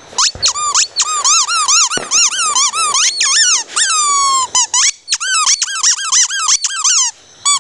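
A dog's squeaky toy squeaking over and over as the dog chews it, about three short squeaks a second, with one longer squeak falling in pitch about four seconds in.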